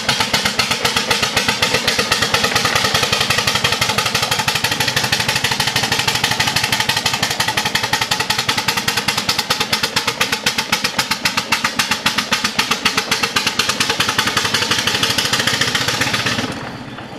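A 4-inch scale Fowler live-steam traction engine driving past, its steam exhaust chuffing in a rapid, even beat. The sound cuts off suddenly near the end.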